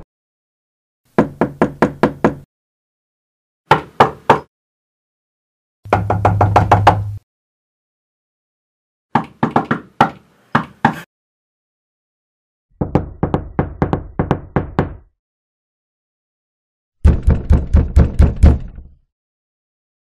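A series of separate door-knock recordings: six bursts of knuckle knocks on a door, each parted by a few seconds of silence, ranging from three quick raps to runs of about eight to ten rapid knocks. The last burst is the loudest and heaviest pounding.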